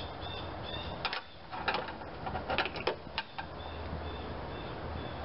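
Scattered sharp clicks and knocks of a screwdriver and serpentine belt against the metal of the lower idler pulley as the belt is worked into place, mostly in the middle. Behind them a high, short chirp repeats a few times a second.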